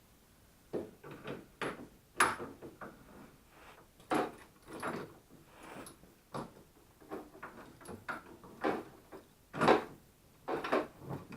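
Irregular knocks, clanks and short scrapes of steel steering-linkage parts and tools being handled and fitted under a car: a tie rod and center link being worked into place.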